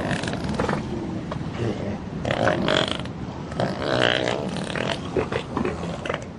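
Elephants rumbling and growling in several short calls over a noisy background, in a stand-off between a captive elephant and a wild elephant.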